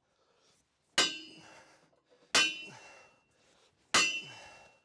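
Three ringing clangs about a second and a half apart: a sledgehammer striking a steel pin driver to drive an excavator track pin out, splitting the track.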